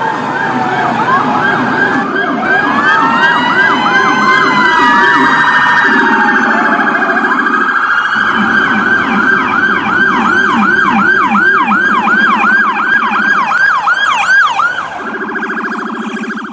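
Electronic emergency-vehicle sirens, several layered at once: a fast repeating yelp of about three sweeps a second with slower wailing sweeps over it. Near the end the yelp gives way to a steadier, quieter tone before cutting off.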